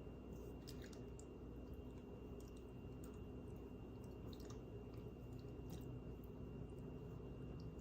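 Faint, irregular soft clicks and squishy skin sounds from fingers massaging the facial muscles around the eye and jaw, over a steady low hum and a thin steady high tone.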